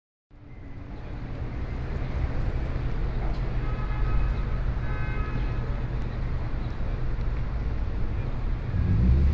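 Outdoor city ambience: a steady low rumble of distant traffic that fades in over the first couple of seconds.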